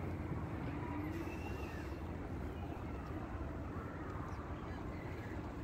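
Steady low rumble of city street traffic, with faint bird calls over it.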